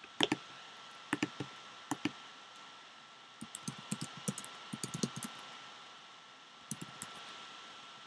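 Typing on a computer keyboard: a quick run of keystrokes in the middle as a web search is typed in, with a few separate sharp clicks before it and two or three more near the end, over a faint steady hiss.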